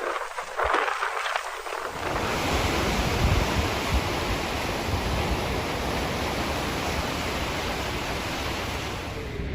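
Strong blizzard wind blowing, a steady rushing noise with a low rumble of gusts buffeting the microphone. It grows louder and fuller about two seconds in.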